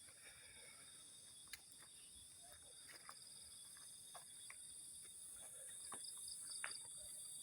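A faint, steady, high-pitched chorus of insects in forest, with a short pulsing trill joining in about six seconds in and scattered light clicks.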